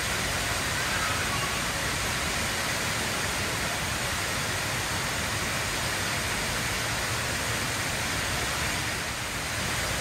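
Jewel Changi Airport's Rain Vortex, an indoor waterfall pouring from an opening in a glass dome into a round basin: a steady, even rush of falling water.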